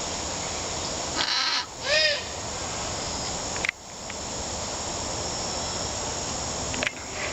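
Military macaw giving one harsh, raspy squawk about two seconds in, over a steady background hiss.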